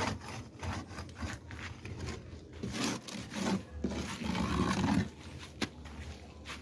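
Irregular rubbing and scraping of hands and tools working on formwork and reinforcing steel, with one sharp click a little past the middle.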